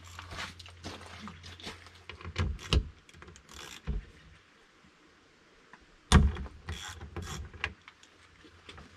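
Clicks, knocks and rattles of a John Deere 35G mini excavator's side access panel being unfastened and handled, with the loudest thump about six seconds in.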